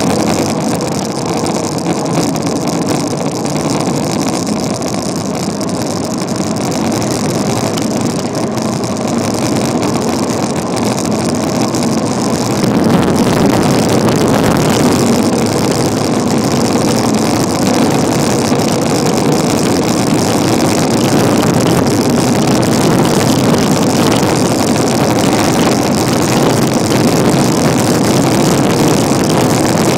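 Wind rushing over the microphone of a camera on a bicycle speeding downhill, a steady dense roar that grows louder about halfway through as the speed picks up.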